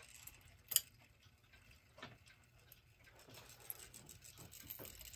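Hammond Bichronous model B2 electric clock running faintly just after being started, with a low hum and a few faint, irregular clicks from its movement, the sharpest about three-quarters of a second in.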